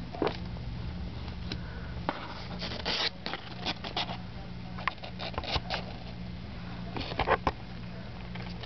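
Young kittens scrabbling and shuffling on their bedding: scattered scratches, rubs and soft patters, with a few louder rustles. A steady low hum runs underneath.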